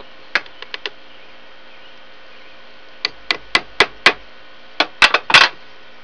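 A hammer tapping a roofing tack into a wooden birdhouse to pin its door shut. First come a few light taps, then a run of five even taps about four a second, then a few louder knocks near the end.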